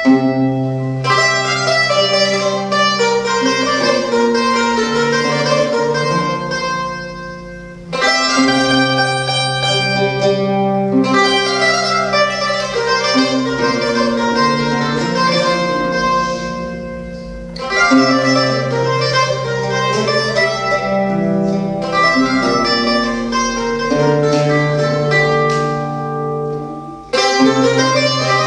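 Medieval-style folk music on two mandolin-family instruments, a mandolin and a larger round-backed one, plucking sustained melodic lines together. The music moves in repeating phrases, each fading off and starting again sharply about every nine to ten seconds.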